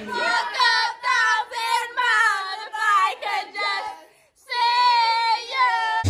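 A high voice singing a melody without backing beat, breaking off briefly about four seconds in.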